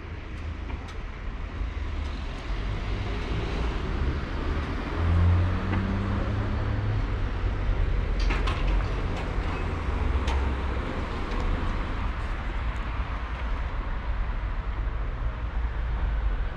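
Steady low road-traffic rumble, with a car going by near the middle and a few sharp clicks about eight to ten seconds in.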